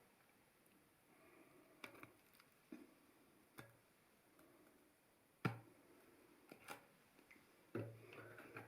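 Near silence: room tone with a few scattered faint clicks and soft knocks, the loudest a little past halfway.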